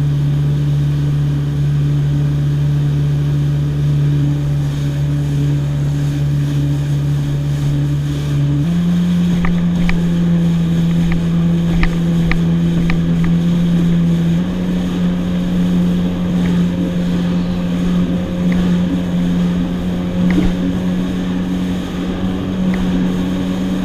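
Yamaha FXHO WaveRunner's 1.8-litre four-stroke engine and jet drive running at speed on open water, a steady tone that steps up in pitch twice as the throttle is opened, about a third of the way in and again past halfway. Wind and water rush past, with a few light clicks later on.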